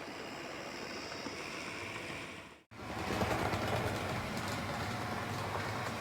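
N-gauge model railcar's motor bogie running along the track with a steady whirring rattle. It cuts off abruptly about two and a half seconds in and starts again at once, a little louder.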